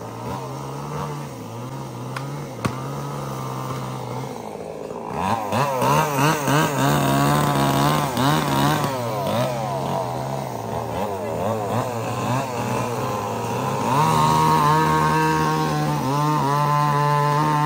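Two-stroke chainsaw idling, then revving and labouring with a wavering pitch as it cuts through a log from about five seconds in, settling to a steady high-speed run near the end. A single sharp knock sounds about three seconds in.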